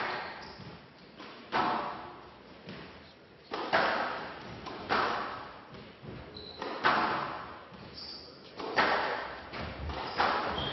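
Squash rally: the ball is struck by rackets and hits the court walls, sharp cracks about every one and a half to two seconds, each echoing in the hall.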